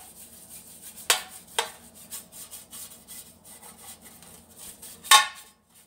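A pastry brush rubbing and scraping oil around the inside of a metal loaf pan in quick, repeated strokes, greasing it. Three sharper knocks come through, the loudest about five seconds in.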